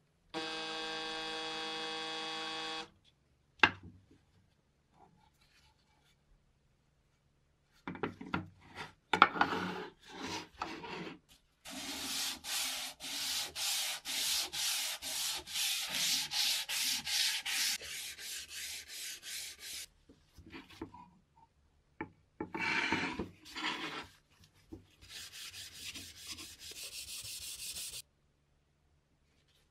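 Hand sanding a wooden board with a sheet of sandpaper: scattered strokes at first, then a regular back-and-forth about two strokes a second, then a few more bursts. It opens with a cordless drill whirring briefly.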